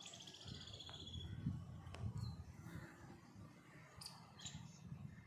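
Small garden birds calling: a trilled call falling in pitch in the first second and a short high call about four seconds in, over a low steady rumble.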